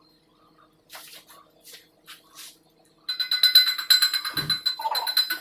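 Shielded metal arc welding with an E6013 electrode on carbon steel pipe. After a few faint scratches, the arc strikes about three seconds in and crackles steadily with a high, steady tone.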